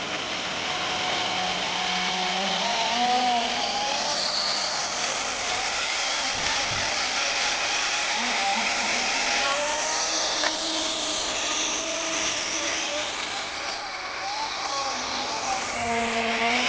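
Kyosho GX-15 nitro engine of an RC tracked snow groomer running, its pitch wavering up and down with the throttle.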